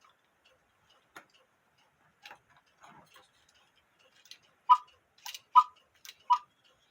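Quarter-hour cuckoo clock movement ticking. A few scattered clicks come first, then from about two-thirds of the way in a steady tick-tock sets in, alternating louder and softer beats a little under half a second apart.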